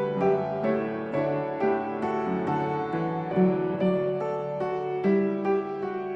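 Background piano music: a gentle melody of struck notes, a few a second.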